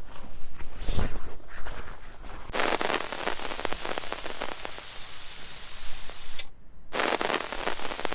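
Heavy rain: a steady, even hiss that sets in abruptly about two and a half seconds in, breaks off for a moment near the end and resumes. Before it come light rustles and clicks.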